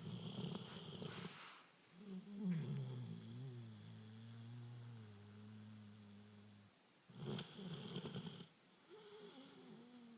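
A sleeping pet snoring in slow cycles. A rasping snore comes near the start and again about seven seconds in, each followed by a long humming breath whose pitch wavers.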